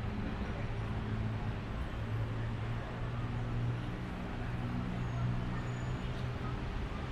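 Street traffic noise: vehicle engines running with a steady low hum under a general city din.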